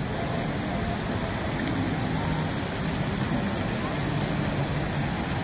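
Fountain water jets splashing steadily into their basin, with indistinct voices of people talking in the background.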